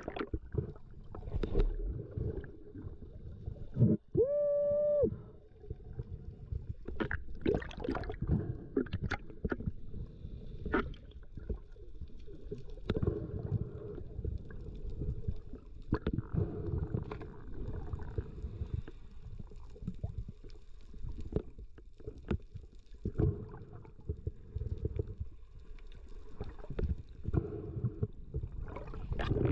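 Underwater sound picked up by a camera in a waterproof housing: a muffled low rumble of moving water with irregular clicks and knocks. About four seconds in there is a short hum-like tone.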